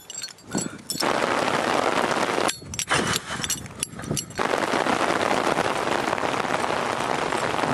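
Steady hiss of falling rain. About two and a half seconds in it is broken for nearly two seconds by quieter stretches with a few sharp clicks.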